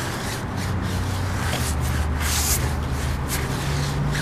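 Stiff-bristled tire brush scrubbing a rubber tire sidewall wet with sprayed cleaner, in quick back-and-forth strokes, a few a second.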